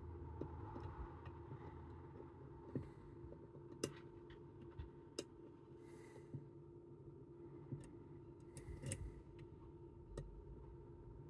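Faint, irregular small metallic clicks and ticks of tools working inside a Chubb Detector lever lock, with a quick cluster of clicks near the end, over a faint steady hum.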